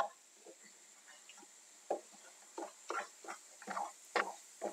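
Wooden spoon stirring diced zucchini and pepper and tomato paste in a nonstick frying pan, sautéing the paste: a quick run of short, quiet scraping strokes, about three a second, starting about two seconds in.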